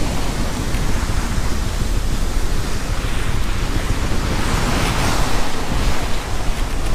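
Sea water rushing and splashing along the hull of a sailboat under sail, mixed with wind buffeting the microphone as a deep rumble. The rush swells louder about twice.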